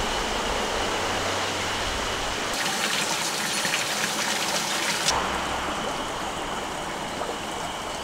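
Running water: a rushing mountain stream. From about two and a half seconds in to five seconds, a brighter splashing sound of water pouring from a spout into a trough takes over, and then the sound settles back to a softer steady rush.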